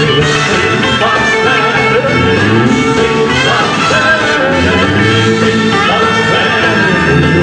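Live band playing a blues number, with guitar and bass guitar.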